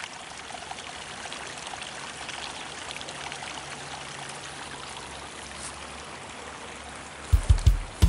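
Steady rush of flowing water from a stream. About seven seconds in, loud low thumps cut in: the first beats of music.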